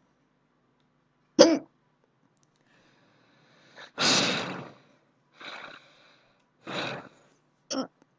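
A woman hiccuping: a sharp hiccup about a second and a half in and another short one near the end, with longer breathy sounds from her in between.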